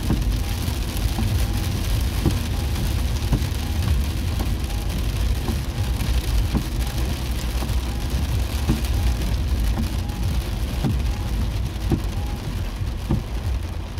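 Heavy rain hissing and pattering on a car's windshield and roof, heard from inside the moving car over the steady low rumble of engine and tyres on the wet road. The windshield wipers sweep across the glass throughout.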